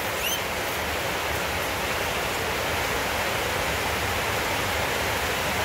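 Steady, even hiss with no clear source, with one short, high rising chirp just after the start.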